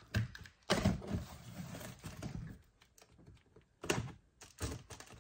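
A few sharp knocks and thuds with some rustling between them, from cardboard boxes and plastic wrap being handled on a pallet. The loudest knock comes about a second in, and two more come near the end.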